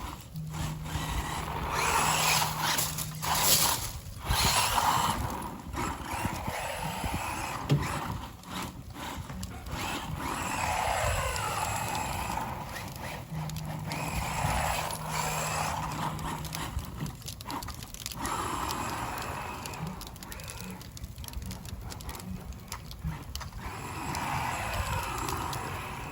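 Electric motor of a radio-controlled truck whirring, rising and falling in pitch as the throttle is worked, with the tyres spinning and sliding through snow.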